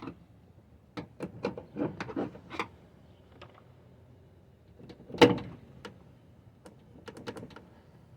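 Plastic trim panel being pried loose: a quick run of clicks and knocks as it comes free, one louder knock about five seconds in, then a few lighter clicks.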